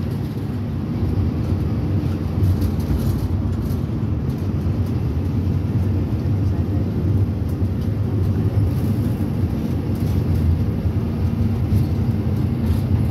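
Steady engine and road rumble heard inside a moving minibus, with a low hum under it.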